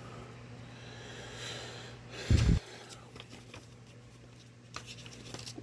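Paper banknotes rustling as they are handled, then a single loud, low thump about two seconds in, followed by a few small clicks, all over a steady low hum.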